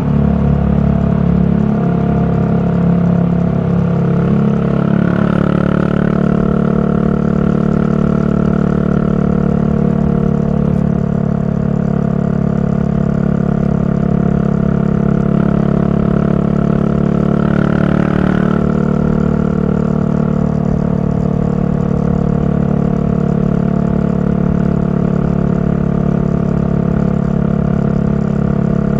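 Yamaha SR400's single-cylinder four-stroke engine running at a steady cruise, its exhaust note coming through a Goods tapered-cone slip-on muffler. The engine pitch holds steady, with two brief rushes of noise about five seconds and eighteen seconds in.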